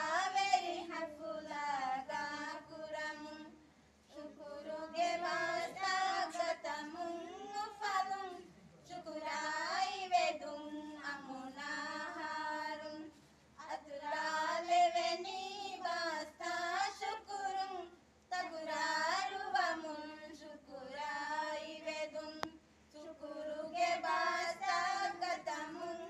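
A group of women singing together without instruments, in phrases of a few seconds with short breaks between them.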